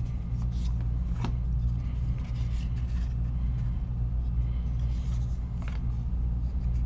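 Steady low hum with a few faint taps and rustles of trading cards being handled.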